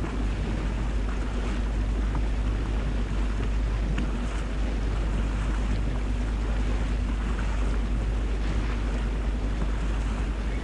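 Wind buffeting the microphone over a boat's motor running steadily at cruising speed, with water rushing along the hull.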